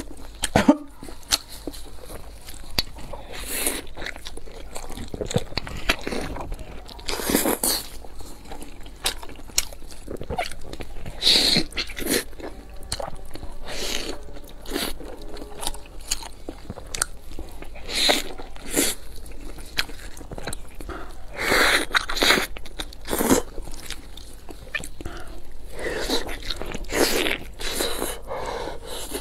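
Eating sounds: repeated, irregular bites and wet chewing of a large pan-fried dumpling, with some crunch from its browned fried wrapper.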